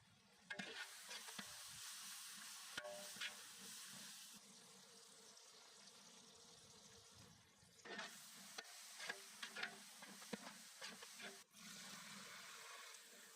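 Food sizzling in hot oil in a pan, with short clicks and scrapes of a utensil stirring it, in clusters about a second in and again around eight to ten seconds in.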